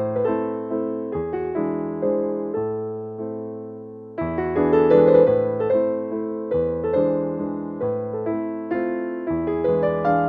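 Background piano music, a gentle melody of plucked-sounding keyboard notes. It fades into a brief lull about four seconds in, then comes back louder.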